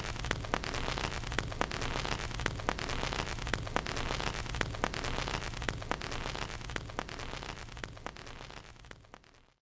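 Steady hiss with scattered sharp crackles and a low hum underneath, like record static or rain noise; it fades out and stops just before the end.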